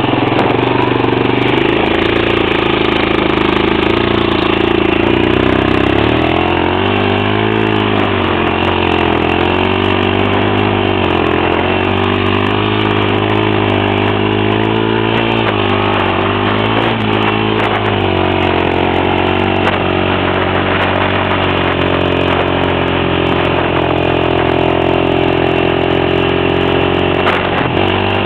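Honda Recon 250 ATV's single-cylinder four-stroke engine running under way. Its pitch rises and falls repeatedly with the throttle from about six seconds in to about eighteen, then holds steady.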